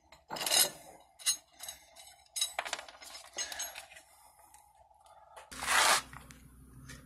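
Scattered light metallic clinks and taps of tools and hardware being handled during a stuck CV axle removal, with a short rush of noise just before six seconds in.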